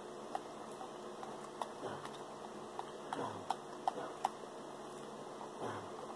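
A person eating chicken wings and fried rice close to the microphone: chewing, with about ten small sharp clicks and taps scattered through, most of them in the middle.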